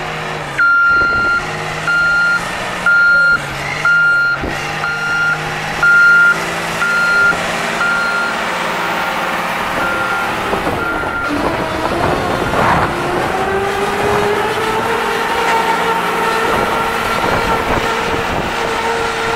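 Caterpillar 938F wheel loader's diesel engine running while its backup alarm beeps about once a second for the first ten seconds or so. About halfway through, the engine revs climb and then hold at a higher speed as the bucket is raised.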